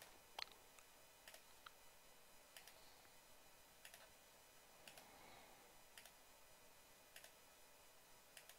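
Faint computer mouse clicks, a dozen or so spread irregularly about a second apart, as a chart pattern is drawn point by point; otherwise near silence.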